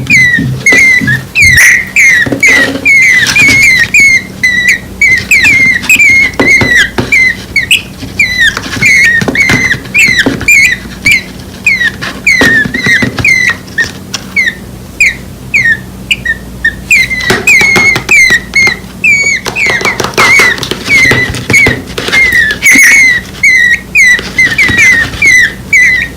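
Two nestling birds less than a week old begging nonstop with short, high chirps, about three a second: hungry calls for the parent bird. Scattered clicks and knocks run underneath.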